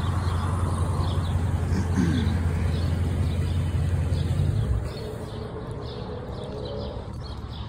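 A car engine idling with a low, steady rumble that drops away about five seconds in, while faint, repeated chirping runs on in the background.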